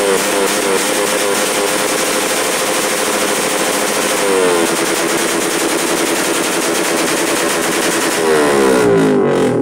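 Suzuki Raider 150 Fi's single-cylinder engine revving, its exhaust crackling with loud, rapid-fire backfire pops, with flame at the exhaust tip. The engine note drops about four seconds in and glides down again near the end as the popping dies away.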